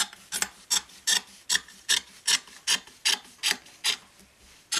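Scissors snipping through fabric in a steady run of cuts, about two and a half snips a second, with a short pause before one last snip near the end.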